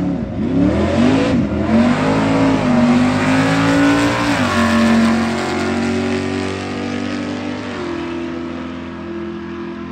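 Two drag cars, one a red Corvette, launching hard off the line with their engines revving in quick rises and falls of pitch, then climbing steadily through the gears. The pitch drops sharply about halfway through as they pass, and the engine sound fades as the cars pull away down the strip.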